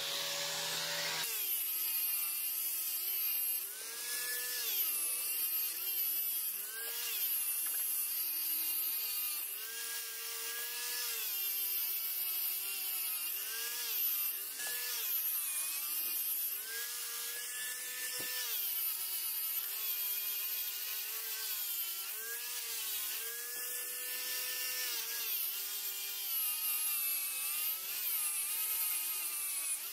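Angle grinder fitted with a polishing disc, buffing the metal housing of an antique electric drill. Its high motor whine runs throughout, dipping in pitch and coming back up every second or two.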